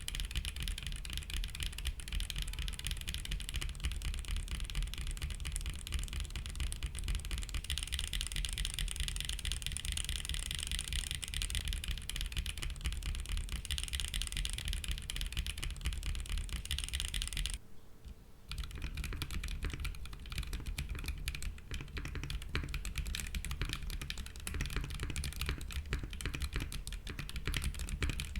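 Continuous fast typing on a custom 60% keyboard with Duhuk Matcha V4 factory-lubed linear switches in an aluminium plate without foam, under GMK keycaps, giving a deep thocky keystroke sound. The typing stops briefly about two-thirds of the way through, then resumes.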